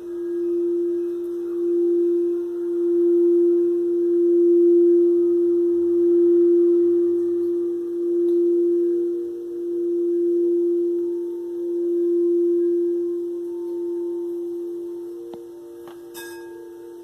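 Crystal singing bowl ringing with one steady tone, its loudness swelling and ebbing in slow waves about every two seconds. The ringing dies down near the end, where there is a brief click.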